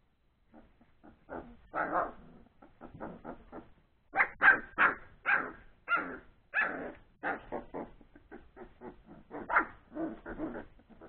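Three-week-old Old English Sheepdog puppies barking while they play, a quick series of short calls about two a second, loudest in the middle.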